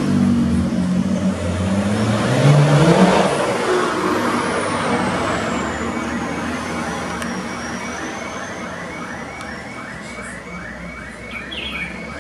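A motor vehicle going past: its engine rises in pitch about two to three seconds in, then fades slowly away. In the second half a faint, even run of ticks at about four a second comes in.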